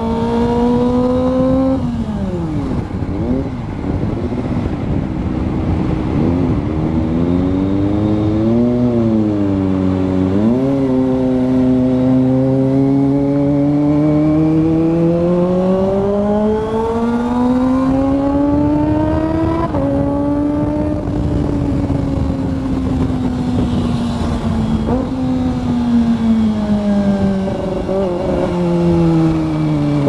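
Kawasaki ZX-25R's inline-four engine revving under way, its pitch rising and falling with the throttle. It wavers up and down for the first ten seconds, climbs steadily from about ten seconds in to nearly twenty, drops sharply, then falls slowly. Wind rushes on the helmet microphone underneath.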